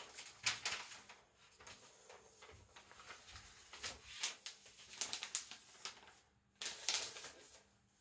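A sheet of thin paper rustling and crinkling in irregular short bursts as it is handled, with the loudest rustles about half a second in, around four to five seconds in, and near the end.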